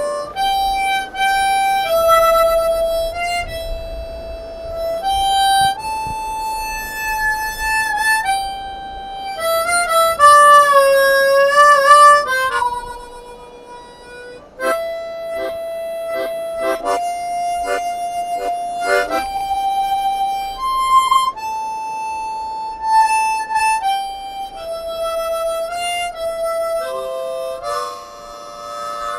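Harmonica playing a slow melody one note at a time, with held notes moving in small steps. About halfway through, the held notes pulse quickly in a fluttering tremolo.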